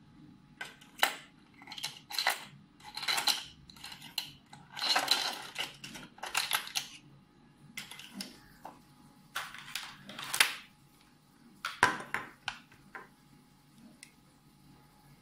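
Hard plastic clicking and rattling from the guide combs and trimmer attachments of a Kemei KM-600 grooming kit being handled and fitted against their plastic stand. The sounds come in irregular clusters, with the trimmer's motor not running.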